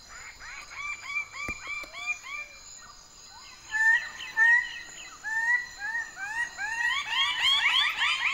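Male Raggiana birds of paradise calling at a display site: a fast series of loud, repeated rising calls, about two or three a second. Several birds overlap and the chorus grows louder near the end.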